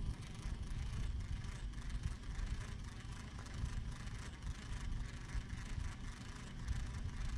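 Wind buffeting the microphone: a low, irregular rumble with no clear tone or rhythm.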